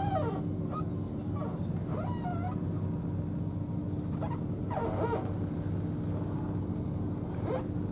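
A steady, low engine drone runs throughout. Over it come several short animal calls that bend up and down in pitch, near the start, in the middle and near the end.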